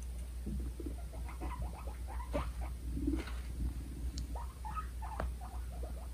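Two guinea pigs in a dominance fight: a rapid run of short squeaky calls and chattering clicks, with a brief low buzz about three seconds in.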